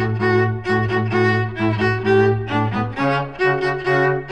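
Background music on bowed strings: a violin line in short repeated strokes over a held low note that changes about three seconds in.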